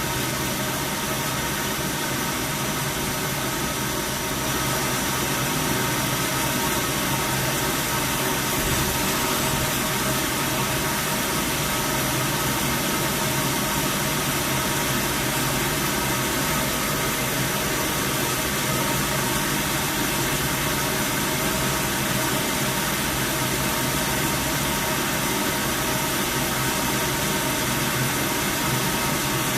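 CNC lathe running steadily: a constant machine hum with several unchanging whining tones over a hiss, a little louder from about four seconds in.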